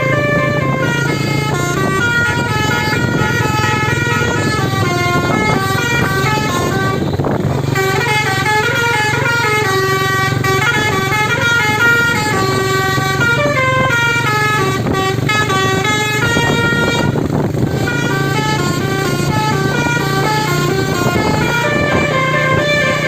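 Telolet horn on a Bagus Trans bus, a multi-trumpet musical horn, playing a long winding melody of stepped notes that goes up and down. It breaks off briefly twice, with a steady low hum beneath.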